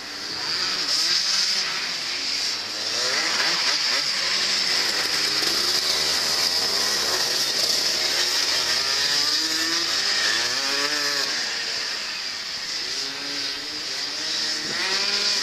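Go-kart engines revving up and down over and over as the karts drift through the corners. The pitch climbs and drops with each burst of throttle.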